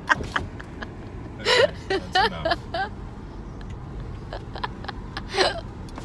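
Steady car road noise heard from inside the cabin, with a short run of laughter, about five quick bursts, a second and a half in, and one more short vocal burst near the end.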